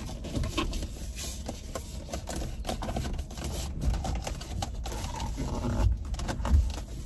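Rhinestone steering wheel cover being stretched and worked onto a car's steering wheel by hand: irregular rubbing, scuffing and small clicks of the cover against the wheel.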